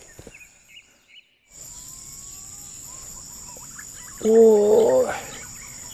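Green pigeon (punai) call: a loud, wavering, warbling call lasting under a second, about four seconds in. Under it runs a steady high insect drone, with a few faint whistled bird notes before the call.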